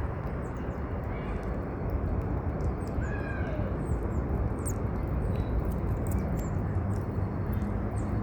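Short, high-pitched animal chirps repeated over a steady rushing background noise, with one lower gliding call about three seconds in.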